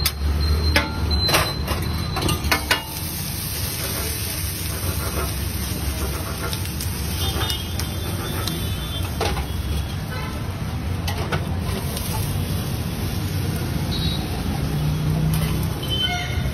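Metal spatula clicking and scraping against a flat griddle, with several sharp taps in the first three seconds and fainter scrapes later as the folded dosa is cut into strips. A steady low rumble runs underneath.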